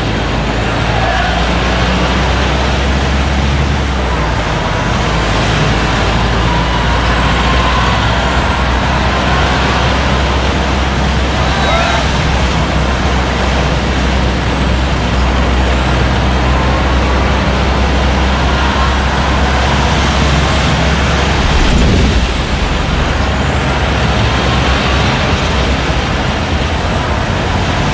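Diesel engine of a Volvo truck running steadily at low speed, with road and wind noise, and a brief louder burst near the end.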